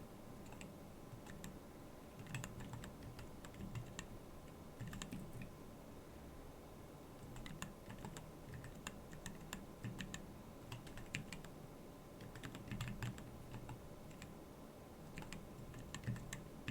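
Typing on a Keyball39 split mechanical keyboard: quick runs of key clicks with brief lulls between them.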